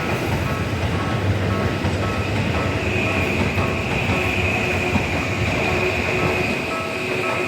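Toei 5500 series electric train running through a level crossing with a steady rumble, while the crossing's warning alarm sounds in a repeating pattern.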